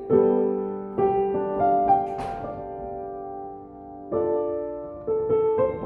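Slow solo piano improvisation: chords struck about once a second and left to ring and fade, with a pause of about two seconds before the next chords near the end.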